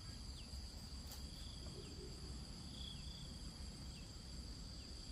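Insects, crickets among them, keeping up a steady high-pitched drone, with a few short high chirps that drop in pitch and a low rumble underneath.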